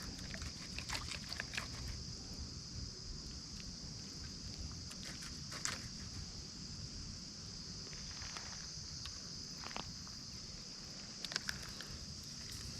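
A steady, high-pitched chorus of insects, with scattered light clicks from handling and adjusting a baitcasting reel.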